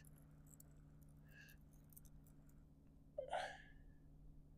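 Near silence with a faint steady low hum, broken about three seconds in by one brief short sound.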